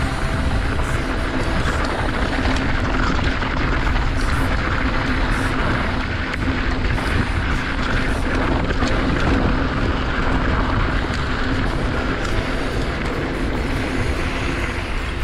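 Wind rushing over the camera microphone and mountain-bike tyres rolling over a dirt trail while riding at speed: a steady, loud rush heavy in the low end.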